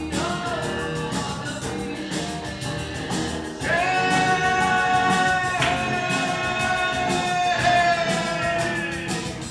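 Small live band playing through a PA: electric bass and guitars with a man singing. About three and a half seconds in his voice comes in strongly, holding long notes.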